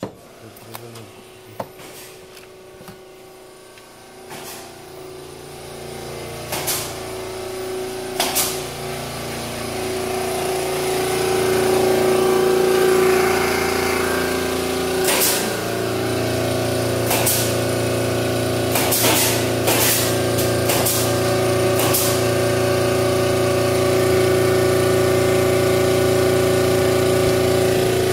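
A motor-driven machine starts, builds over several seconds to a loud steady running hum, and then runs on evenly, with a few sharp knocks and clicks along the way.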